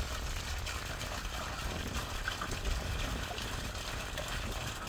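Steady rush of running water over a low rumble.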